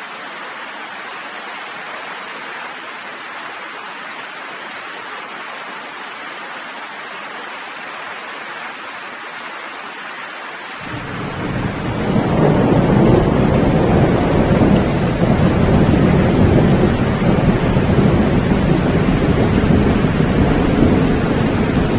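Steady rain falling, then about halfway through a long, deep rumble of thunder rolls in, builds over about a second and keeps rumbling loudly under the rain.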